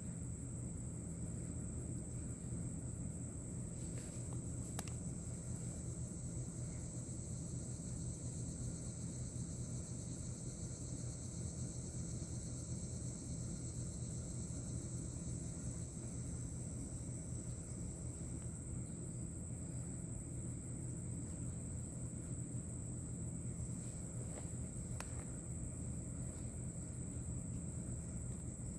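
Insects trilling steadily at a high pitch over a steady low rumble, with a few faint clicks.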